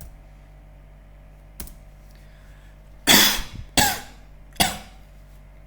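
A person coughing three times in quick succession, the first cough the longest and loudest, recorded as a cough sample. A single click comes shortly before the coughs.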